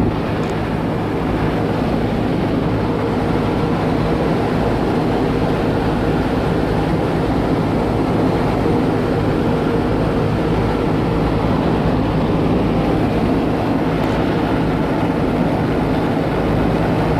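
Steady drone of a Boeing B-17 bomber's four Wright R-1820 Cyclone radial engines in cruise, heard from inside the aircraft, with a constant low hum of engine tones under a thick rush of noise.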